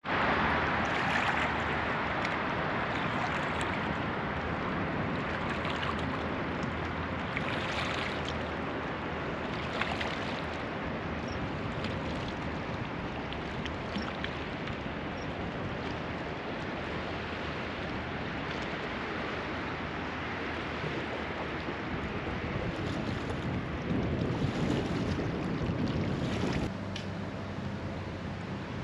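Steady rushing noise of Rhine water lapping at a stony riverbank, mixed with wind on the microphone.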